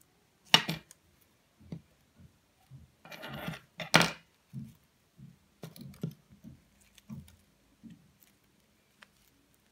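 Small scissors snipping thread with a sharp click about half a second in, then a rustle and a loud metallic clack near four seconds. Soft taps and rustles follow as wire-stemmed craft flowers are handled over a velvet cushion.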